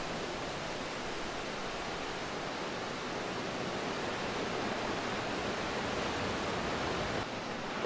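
Steady rushing of ocean surf breaking on a rocky shoreline, with no distinct individual waves. The low rumble thins slightly near the end.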